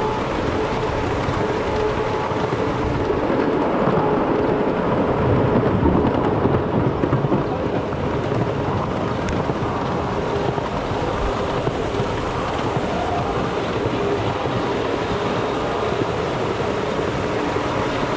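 Ride-on miniature train running along its track: a steady rumble of wheels on rails with a faint steady hum, a little louder about five to seven seconds in.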